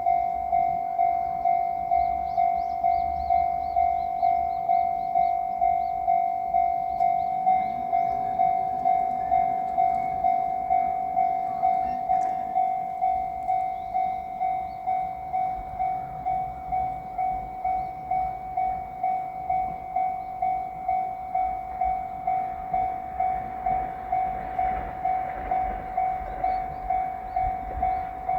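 Japanese level crossing warning bell ringing steadily in a single pitched tone, about one and a half strikes a second. Near the end a low rumble builds under it as the train comes closer.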